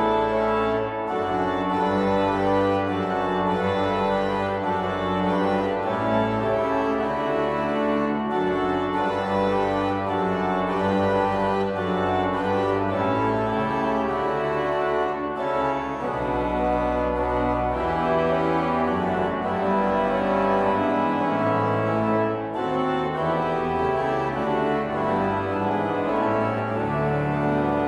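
Background organ music: sustained chords over a bass line that moves every second or two.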